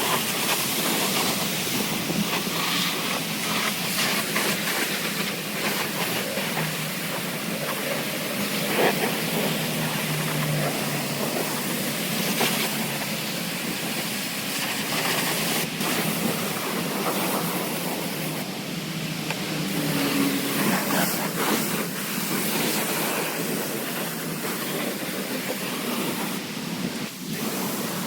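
Pressure washer spraying water over a car's bodywork during the rinse: a steady hissing spray with a low hum underneath.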